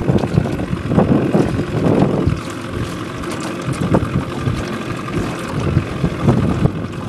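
Wind gusting on the microphone in uneven blasts, over the low steady running of a small boat's motor.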